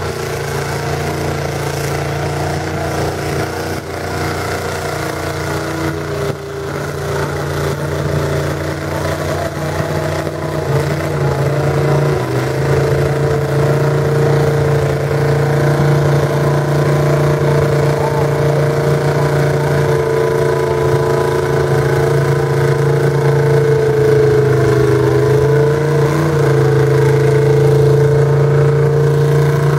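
Engine of a Chevrolet S-10 mud truck on paddle tires, held at high, steady revs under load as it churns through a mud pit. It grows gradually louder, with small shifts in pitch a third of the way in and again near the end.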